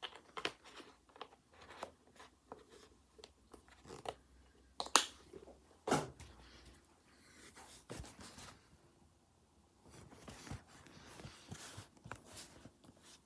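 Irregular clicks, taps and rustling of something being handled, with two sharper knocks about five and six seconds in.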